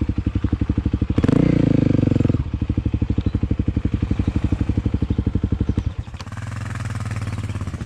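Dirt bike engine running under way, with a burst of throttle about a second in, then steady running, easing off and dropping back about six seconds in.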